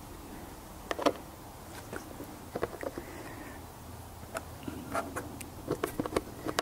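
Light, irregular clicks and taps of small screws and rubber washers being handled and started by hand into a motorcycle windscreen and its bracket, about ten in all.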